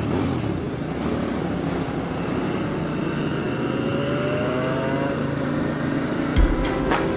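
Onboard sound of a motorcycle riding in a pack on a race track: its engine runs under a heavy rush of wind on the helmet camera, the engine note rising slowly about halfway through as the bike accelerates. A couple of low thumps come near the end.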